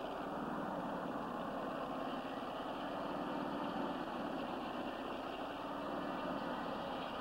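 Portable circular-blade sawmill running steadily, its engine driving the large blade through a log to saw timber beams.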